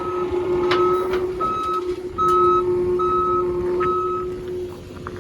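Reverse alarm of a John Deere 331G skid steer beeping about once a second while its diesel engine runs, with a few metallic clanks as it backs up. The beeping stops a little after four seconds in, and the engine noise drops soon after.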